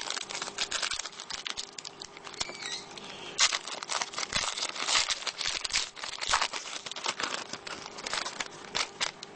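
A trading card pack's foil wrapper crinkling and being torn open, with rapid irregular crackles and clicks that are busiest in the middle.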